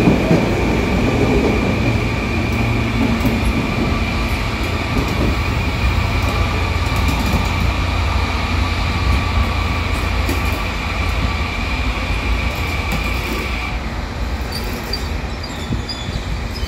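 Electric commuter train running slowly along the tracks: a steady low rumble of wheels on rail, with a high-pitched squeal held on one pitch that cuts off suddenly about fourteen seconds in.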